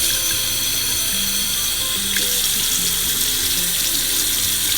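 Water running steadily from a single-handle Delta bathroom faucet into the sink, with background music playing underneath.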